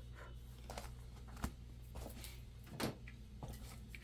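A few faint, sharp clicks and light knocks of small parts and tools being handled on a workbench, over a low steady hum.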